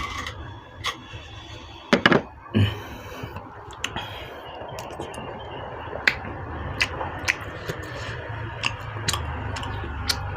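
Eating noodle soup: chewing, with scattered small clicks of utensils against the bowl and two louder knocks about two seconds in, over a steady low background hum.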